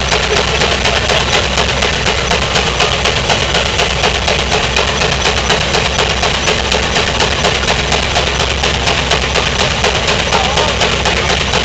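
Huber steam traction engine running steadily while belted to a threshing machine, its exhaust beating in an even, rapid rhythm.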